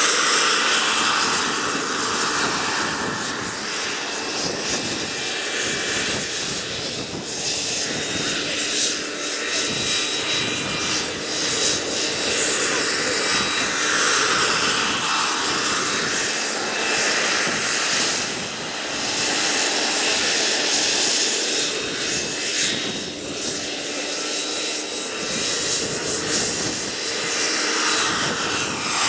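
Turbine engine of a radio-controlled scale CH-53 helicopter running with a steady high whine over a dense rushing noise, swelling and easing in loudness as the helicopter makes low passes.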